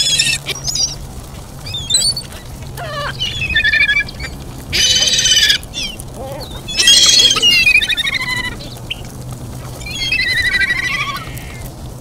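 Gulls calling: a series of separate calls, each under a second to about a second long, coming every couple of seconds, over a faint steady low hum.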